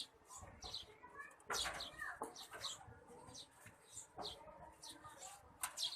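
Small birds chirping over and over in short high chirps, several sliding downward, with a couple of sharp knocks about a second and a half in and near the end.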